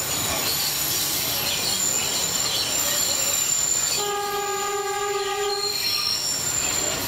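Narrow-gauge St. Kitts Scenic Railway train running along the track, with steady running noise and a thin high wheel squeal. About four seconds in, the train's horn sounds once for nearly two seconds.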